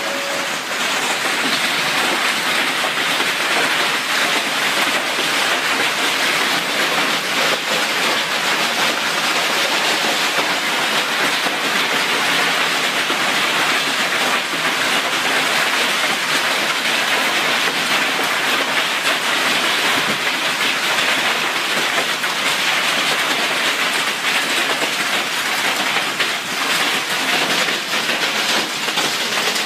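Heavy hailstorm: hailstones and rain pelting down in a dense, steady clatter of countless small impacts on ground, roofs and road.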